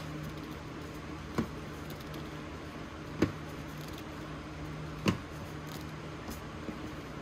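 Spatula folding whipped cream into vanilla pudding in a plastic bowl: three brief soft squishes about two seconds apart, over a steady low hum.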